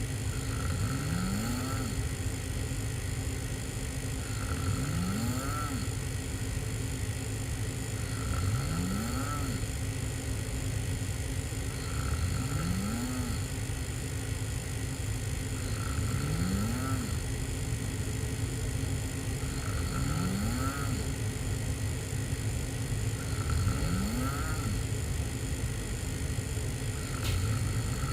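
A person snoring hard through an open mouth while lying on their back, about one snore every four seconds, each rising in pitch, over a steady low rumble.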